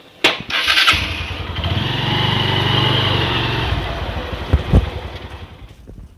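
Motorcycle engine pulling away and riding past close by, growing louder and then fading off. Two sharp knocks about four and a half seconds in.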